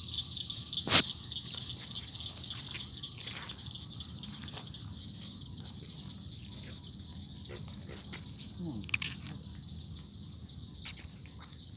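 Steady high-pitched chorus of night insects such as crickets, with a single sharp knock about a second in.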